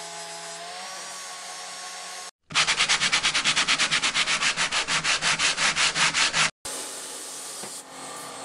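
Angle grinder fitted with a polishing wheel running steadily as chromed deck fittings are polished, its pitch stepping up slightly about a second in. After a brief cut comes a loud rhythmic rasping scrape of about seven strokes a second for some four seconds, then a fainter steady hiss.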